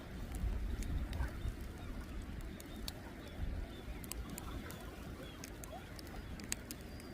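Outdoor ambience: a steady low rumble, loudest in the first second or two, with a few faint, brief bird calls and scattered light clicks.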